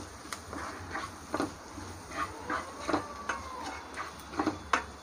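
A spatula stirring sautéing onions in a nonstick kadai, with irregular scrapes and light taps against the pan.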